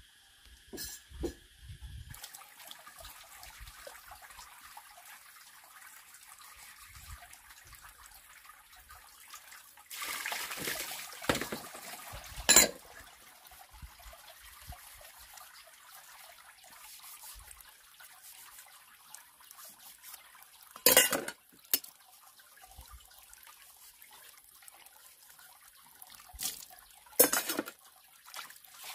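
Water trickling steadily, with a louder rush about a third of the way in and a few sharp knocks scattered through the rest.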